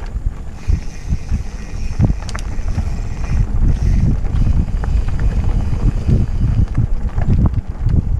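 Wind buffeting the microphone of a camera on a mountain bike moving along dirt singletrack. Under it, the low rumble of tyres on the trail, with scattered clicks and knocks of the bike rattling over bumps.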